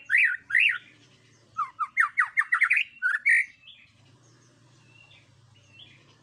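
White-rumped shama (murai batu) singing: a few loud whistled notes that rise and fall, then a fast run of short notes. About three and a half seconds in the song drops to faint scattered notes.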